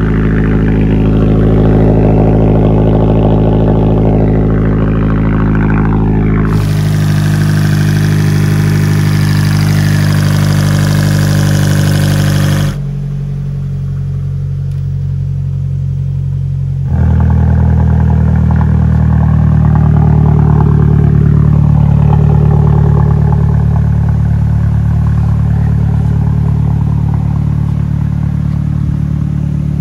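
Fiat 500 Abarth's 1.4 MultiAir turbocharged four-cylinder, fitted with a GT2860 big turbo, idling steadily. The sound jumps abruptly three times and is quieter for a few seconds around the middle.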